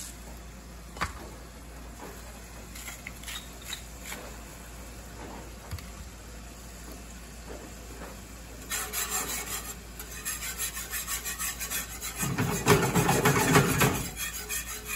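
A whisk scraping rapidly around a skillet of gravy. It starts a little over halfway through and is loudest near the end. Before it there are only a few faint ticks.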